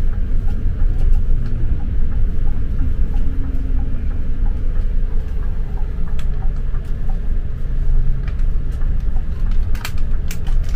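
Bus engine and tyre noise heard from inside the cabin while driving: a steady low rumble with a faint engine hum, and a few sharp clicks or rattles near the end.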